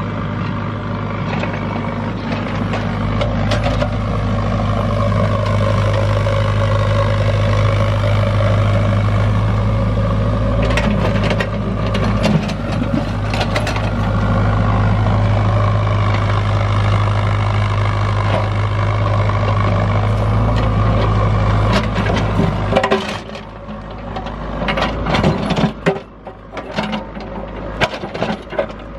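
Excavator's diesel engine running steadily under load while digging, with scattered knocks and scrapes of the bucket in rocky ground. The engine hum drops away about 23 seconds in, and the knocks go on.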